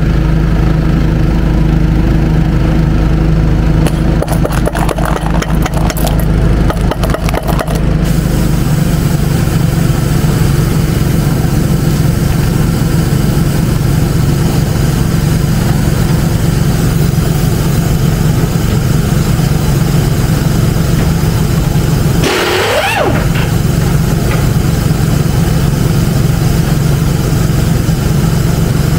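An engine running steadily. A pneumatic impact wrench hammers in quick rattling bursts for a few seconds early on. About three-quarters of the way through there is a short rising and falling whine.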